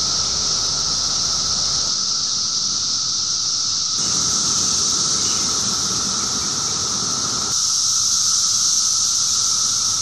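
Chorus of Brood XIV periodical cicadas: a steady, high, shrill whine over a lower, steady drone.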